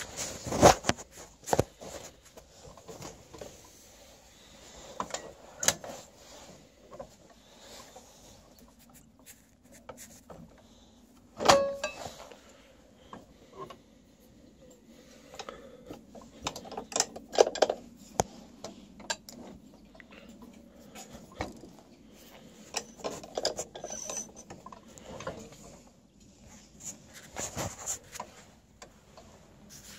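Scattered metal clinks, knocks and rubbing from handling around a tractor whose engine is not running, with one louder metallic knock about eleven seconds in.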